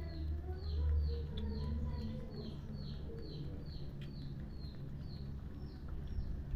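A bird calling over and over, a short falling chirp repeated about twice a second, over a steady low rumble.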